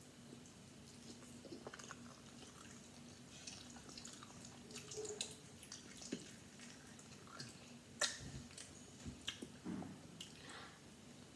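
A person chewing scrambled eggs with cheese, with soft, scattered wet mouth smacks and clicks. A sharper click about eight seconds in, over a faint steady hum.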